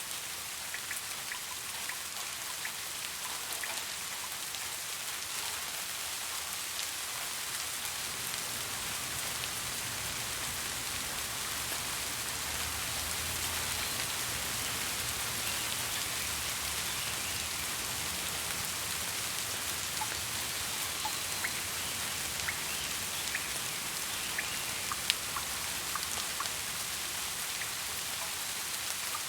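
Steady rain falling, an even hiss with individual drops ticking on a surface, and a low rumble that swells and fades in the middle. One sharp drop stands out near the end.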